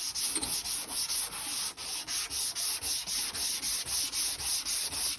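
Sandpaper on a hand-held sanding block rubbing back and forth over a car's painted panel, in quick, even strokes about two to three a second, cutting down orange peel before the base coat.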